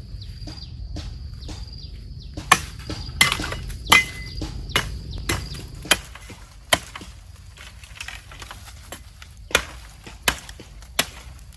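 A blade chopping bamboo: about ten sharp chops at uneven intervals, starting a couple of seconds in, with a pause of a few seconds in the middle.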